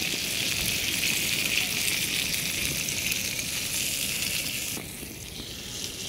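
Scrambled egg and hot dogs sizzling on a portable camp griddle, a steady hiss that drops off and turns quieter about five seconds in.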